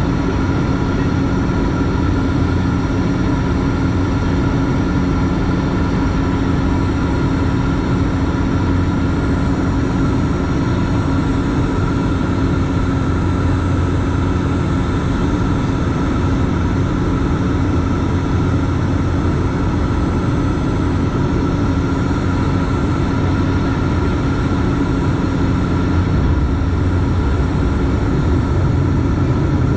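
Steady drone of a De Havilland Canada Dash 8-400 turboprop's engine and six-bladed propeller, heard inside the passenger cabin, with a steady propeller hum running through it, on approach. Near the end the landing gear comes down and the low rumble shifts slightly.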